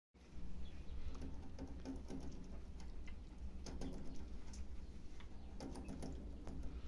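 Irregular light ticks and rustles of rabbits moving about in straw, over a steady low hum.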